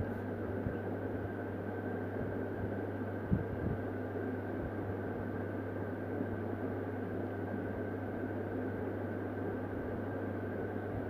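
Steady background hum and whir with no speech, with a few light knocks of a metal spatula on a steel reballing stencil, the loudest about three seconds in, as solder paste is worked into the stencil.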